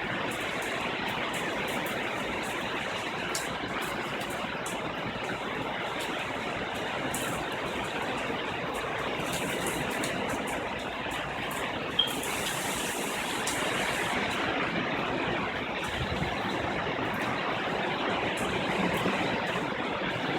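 Hurricane wind and rain making a steady, dense rush of noise, with one sharp click about twelve seconds in.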